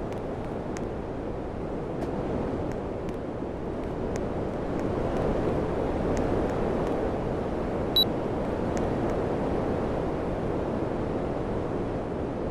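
Air conditioner running, a steady rush of blown air that swells and eases slightly. A short high blip sounds about eight seconds in.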